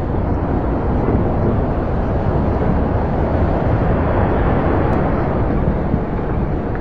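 City ambience: a steady, dense low rumble of distant city noise with no distinct events.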